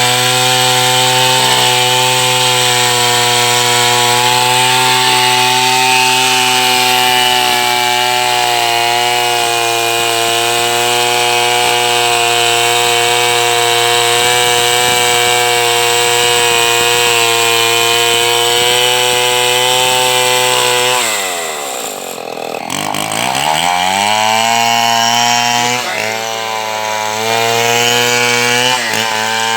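Two-stroke chainsaw running at full throttle, sawing wood with a steady high engine note. About 21 seconds in, the engine drops quickly toward idle and revs straight back up, then keeps sawing with a couple of short dips in speed near the end.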